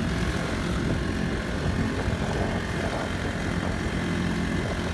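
Honda GX35 35cc four-stroke engine driving a small pontoon boat, running steadily under way.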